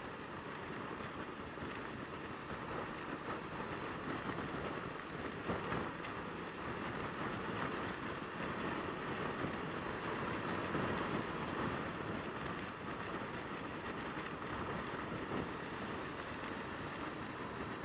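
Steady rush of wind and running noise from a Yamaha YZF600R Thundercat's inline-four sportbike at highway speed, heard from the rider's seat, getting a little louder over the first few seconds.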